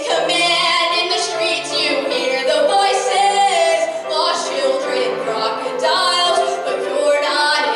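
A young woman singing a musical-theatre song solo into a microphone, with a wavering vibrato on a held note about three seconds in.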